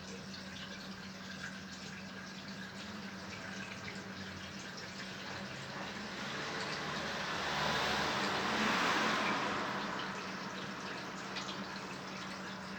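LG washing machine taking in water, a steady rush of water with a low steady hum beneath it, swelling louder about seven seconds in and easing off again about three seconds later.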